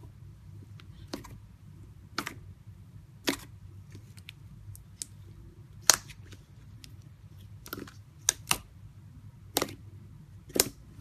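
Clear slime pressed and kneaded by fingers in a plastic tub, trapped air popping out in sharp clicks: about ten pops at irregular intervals, the loudest about six seconds in.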